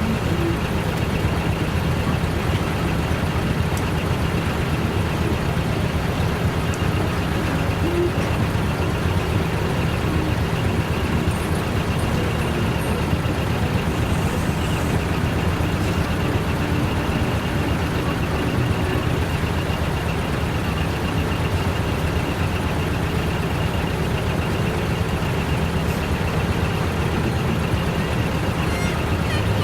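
Heavy diesel truck engines running steadily, a low even drone that holds the same pitch throughout.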